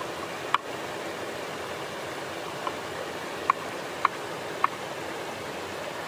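Cleaver chopping tomatoes on a wooden cutting board: five sharp knocks at uneven intervals, over the steady rush of a flowing stream.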